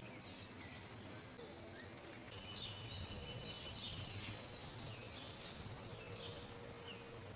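Several wild birds chirping, trilling and whistling in short, overlapping calls, over a low steady rumble of background noise.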